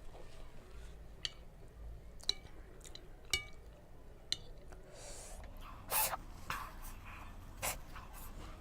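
Eating very spicy noodles: four light ringing clinks, about a second apart, of utensils against the bowl, then several sharp sniffs and gasps, the loudest about six seconds in, as the chili burns.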